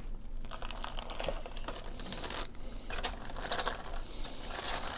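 Plastic model kit parts being handled and sorted: scattered light clicks and rattles of plastic parts trees against each other and the box.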